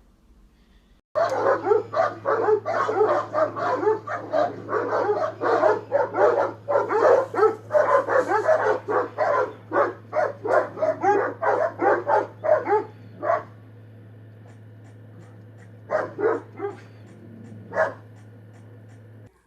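A dog barking rapidly and repeatedly, about three barks a second, starting suddenly about a second in. The barking stops for a few seconds, then comes back as a few separate barks near the end, over a steady low hum.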